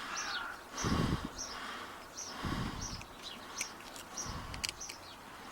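A bird chirping in the background, short falling calls about twice a second, with a few low handling thuds and sharp metallic clicks from work on the padlock's core.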